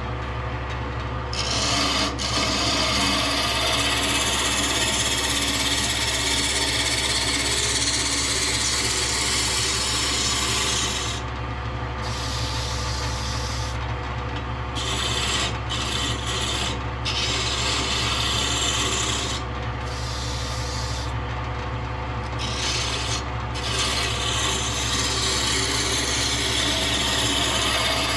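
A tool abrading wood in long, continuous passes, broken by a few short pauses, over a steady low hum.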